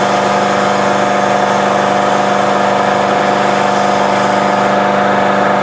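Diesel common-rail injector test stand, with eight injectors and large-bore fittings in both fuel rails, running steadily at idle with rail pressure holding around 23,600 psi: a constant, even machine hum with no change in pitch.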